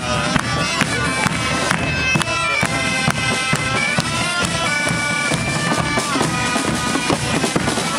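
Bagpipes and drums playing a lively dance tune: a held, ornamented pipe melody over a steady drumbeat.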